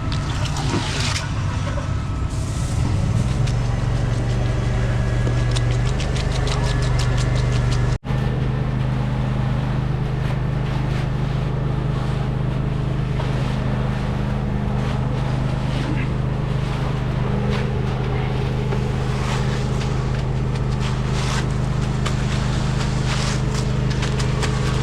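Diesel engine of a ready-mix concrete truck running steadily, with a momentary dropout about eight seconds in.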